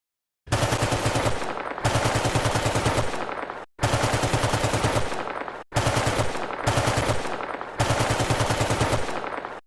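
Automatic gunfire sound effect: long bursts of rapid shots at about ten a second. It breaks off sharply twice for an instant.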